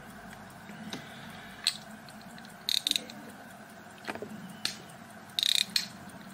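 Gold-plated hunter-cased pocket watch handled in the fingers: a scatter of sharp metallic clicks and two short ratchet-like bursts, the louder one about five and a half seconds in.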